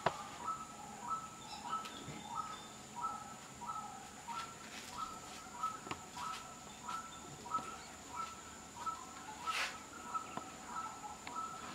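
A bird calling a short two-note phrase, a higher note then a lower one, repeated over and over at an even pace, with a steady high-pitched whine underneath. There is a single brief crackle about three-quarters of the way through.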